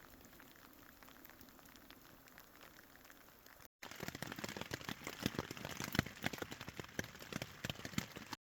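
Light rain: a steady soft hiss, then after a cut, close, dense, irregular tapping of raindrops on a surface.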